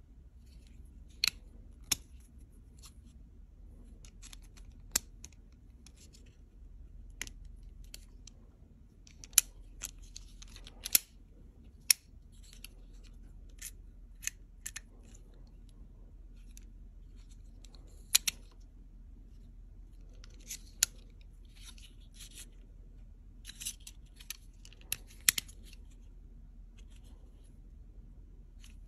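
Clicks and snaps of a Milwaukee Fastback folding utility knife being worked by hand as its blade and fold-out bit holder open, close and lock into place. Sharp clicks come at irregular intervals, about a dozen loud ones, over a faint low hum.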